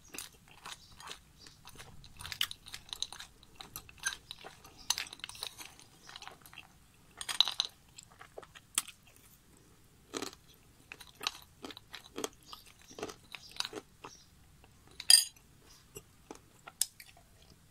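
Close-up crunching and chewing of dry chunks of baked clay in the mouth: irregular crisp crunches, with a loud bite a little after the middle and the loudest crunch near the end.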